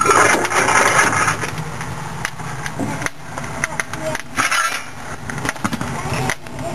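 Coal fire burning in the open firebox of a 7¼-inch gauge miniature steam locomotive, a steady rushing sound with scattered sharp clicks and taps.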